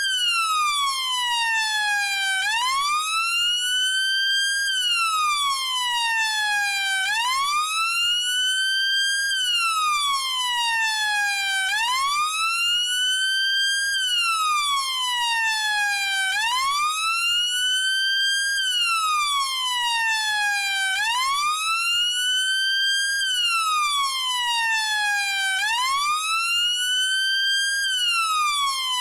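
British police siren sounding a slow wail. The pitch climbs for a little over two seconds, then falls for about as long, repeating steadily about every four and a half seconds.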